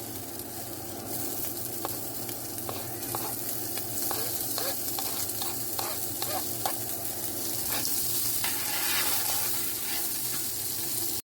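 Onions sizzling in hot oil in a pot, stirred with a utensil that clicks and scrapes against the pot now and then. The sizzle grows louder about a second in.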